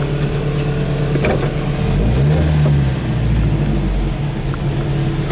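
A 1967 Volvo Amazon 122S's four-cylinder engine running at low speed as the car is manoeuvred, heard from inside the cabin. Its pitch briefly rises and falls about two seconds in, a short bit of throttle. There is a single click a little over a second in.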